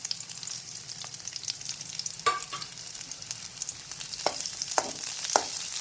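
Small onions, garlic, black pepper and cumin sizzling in hot oil in a kadai as they are sautéed, with a metal spatula knocking against the pan four times, the first with a short ring.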